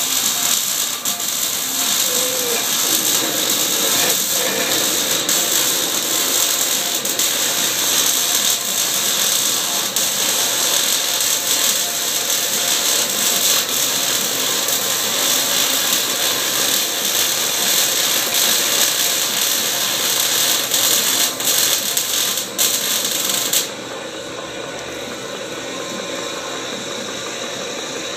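Lathe drilling a steel bearing cap with a large twist drill: a steady, harsh, hiss-like cutting noise over the running machine. The cutting noise cuts off suddenly about four seconds before the end, leaving a quieter, steady machine run.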